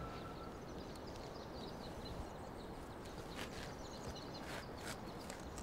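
Faint outdoor ambience: a steady low background hiss with small birds chirping now and then, and a few soft ticks.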